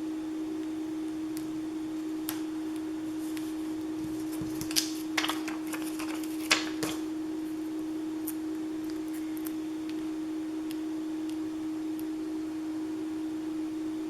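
A steady humming tone underneath a few light clicks and crinkles of paper letter stickers being handled and pressed onto a photo, with a small cluster of them around five seconds in.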